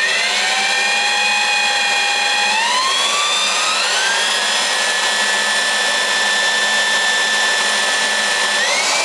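Electric drill running in rotary mode without hammer action, its bit boring a pilot hole into a nano white granite countertop. A steady motor whine that climbs in pitch at the start, steps up twice in the first few seconds, then holds and rises again near the end.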